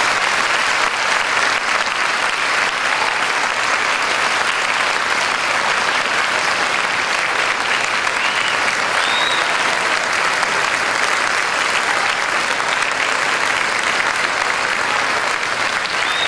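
A large audience applauding steadily, a dense sustained clapping that fills a big auditorium.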